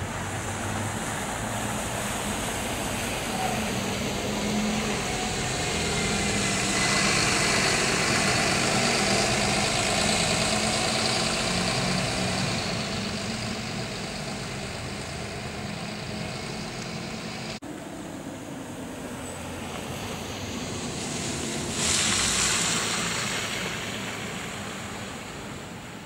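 Road traffic on a snow-covered street: a city bus and cars drive by, engine hum with tyre noise on the wet snow swelling and fading about a quarter of the way in, and another vehicle passing briefly near the end.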